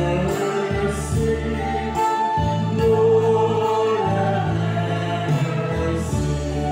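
Choir singing a sacred hymn with instrumental accompaniment: sustained melody notes over a held bass line that moves to a new note every second or two.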